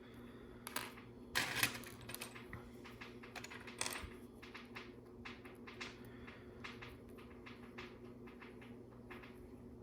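Small LEGO plastic pieces clicking and clattering as they are handled and pressed together. There is a denser, louder rattle about a second and a half in.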